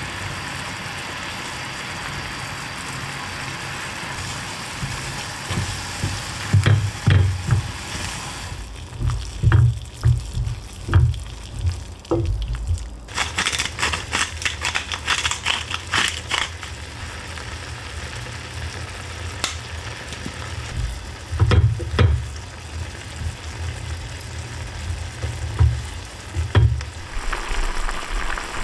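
Cream stew simmering in a saucepan, a steady bubbling and sizzling hiss, broken through the middle by many soft low knocks of the pan and utensils being handled. About halfway through there are a few seconds of brighter hiss.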